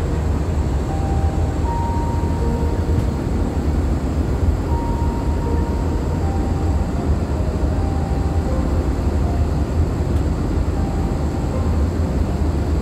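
Airbus A321-211 passenger cabin in flight: the steady low rumble of its CFM56 engines and the rush of airflow past the fuselage.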